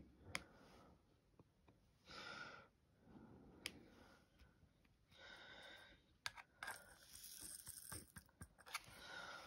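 Faint, scattered taps and clicks of a diamond-painting drill pen setting resin drills onto the canvas, busiest in the second half, with a soft rustle every few seconds.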